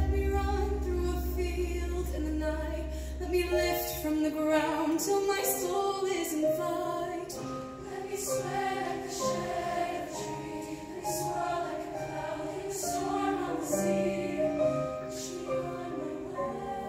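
Show choir singing in harmony with band accompaniment, a low held note sounding underneath for the first few seconds.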